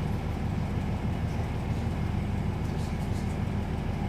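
Diesel railcar running, heard from inside the carriage: a steady low engine drone with the hum of the train in motion.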